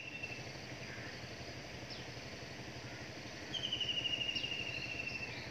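Outdoor ambience: a steady low rumble, and about three and a half seconds in, a fast high trill, falling slightly in pitch, that lasts about a second and a half.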